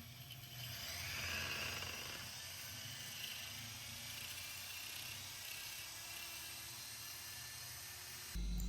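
A small power tool working on metal, making a steady whirring hiss. Near the end it gives way suddenly to a louder low rumble.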